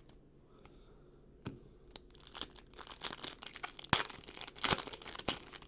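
Foil trading card pack being torn open and crinkled by hand. Scattered sharp crackles begin after a quiet first second or so and come thicker and louder in the second half.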